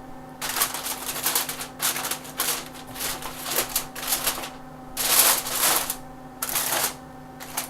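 Aluminium foil crinkling and crackling in repeated bursts as it is pressed and crimped tightly around a roasting pan to seal it.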